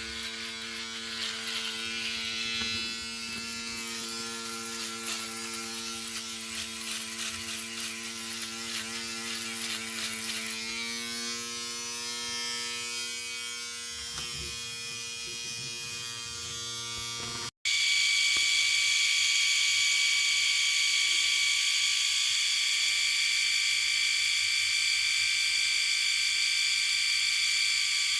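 Electric shaver running with a steady buzz. About two-thirds of the way through it cuts out abruptly, and a different, louder electric shaver with a higher, brighter whine takes over.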